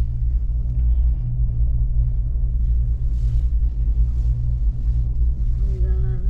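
Steady low rumble inside a moving cable-car gondola cabin as it travels along the line.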